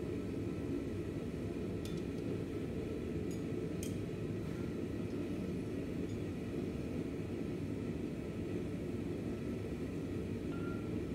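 Steady low roar of a gas forge burner running, with a few faint metallic clinks of tongs and hammer against the steel about two and four seconds in.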